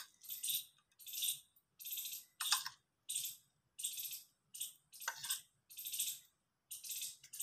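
Background music made of a dry, hissing shaker-like rhythm, about two short strokes a second.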